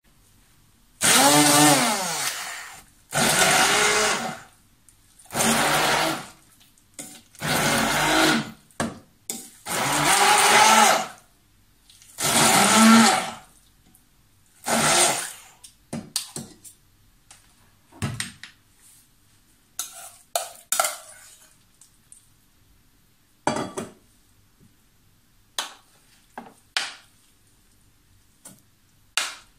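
Handheld stick (immersion) blender run in about seven bursts of a second or two, pureeing raw chicken breast in a pot, its motor whine shifting in pitch within each burst. In the second half come scattered short clinks and knocks as the pot, blender and meat are handled.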